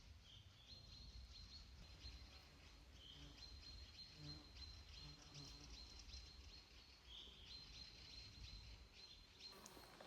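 Faint forest ambience: small birds chirping high and repeatedly, with a soft call about every four seconds, over a low rumble.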